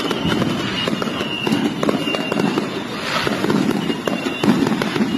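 A long string of firecrackers crackling rapidly and continuously.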